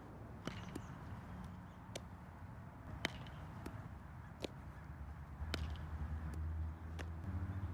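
About ten sharp pops at irregular intervals: a baseball smacking into leather gloves during first-base fielding.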